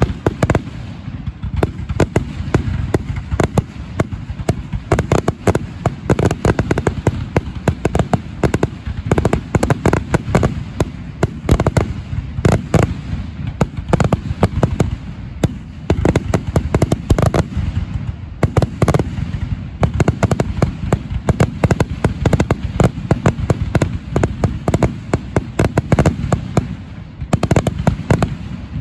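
A fireworks display: aerial shells bursting one after another in a dense, loud run of booms and crackling, with only brief lulls.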